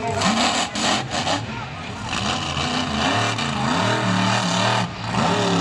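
Monster truck engine running and revving, its pitch rising and falling in steps.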